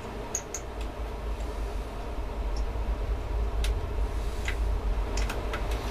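Scattered light clicks and taps of hands handling the wiring and connectors inside a welding rectifier, irregular and several clustered near the start and near the end, over a low steady rumble.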